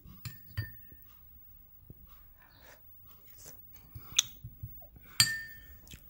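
A metal spoon clinking against a bowl a few times, the loudest clink with a brief ring near the end, with quiet chewing sounds of someone eating white-bean stew in between.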